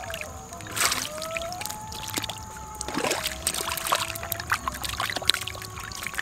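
Hands splashing and sloshing in shallow muddy water while groping through the mud for fish, with scattered small wet clicks and two louder splashes, about a second in and about three seconds in.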